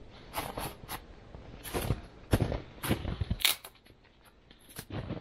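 Footsteps crunching through snow among spruce brush, about nine uneven steps with twigs and branches rustling against clothing.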